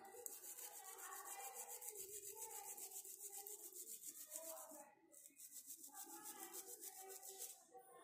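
Faint, quick scrubbing of a small brush over the thinner-wetted connectors of a copier control-panel circuit board, with a short pause about five seconds in. The board is being scrubbed to clear rust- and carbon-like deposits that make the panel display cut out.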